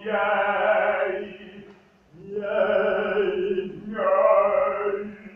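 A man singing three sustained vowel phrases, a vocal exercise, with short breaths between them and a steady low tone underneath.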